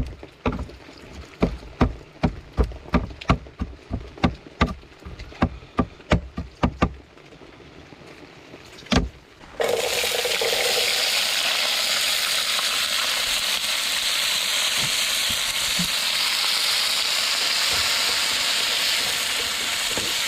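A kitchen knife chopping on a cutting board in quick strokes, about three a second, for several seconds. Then, about ten seconds in, food goes into a hot wok and starts frying with a loud, steady sizzle.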